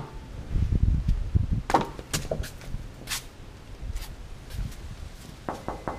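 Bumps and sharp taps against a sliding glass door, from the animals pressing on the glass from both sides: a few low thumps between about half a second and a second and a half in, then scattered taps and clicks.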